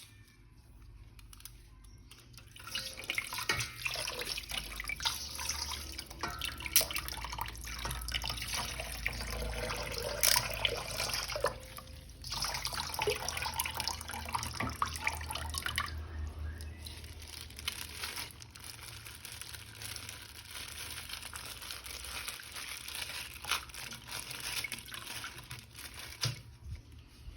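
Water running from a tap and splashing over a small plastic action figure as it is washed, with small clicks and knocks of handling. It starts a few seconds in and stops near the end.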